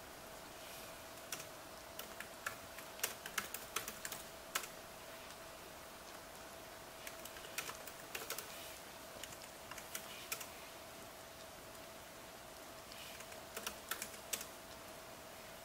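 Typing on a MacBook laptop keyboard: three bursts of quick key clicks with pauses of a couple of seconds between them.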